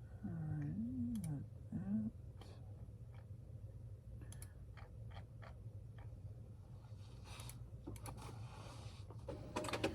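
Scattered clicks and taps of a computer keyboard and mouse over a steady low hum. In the first two seconds a short low wavering pitched sound rises and falls a few times.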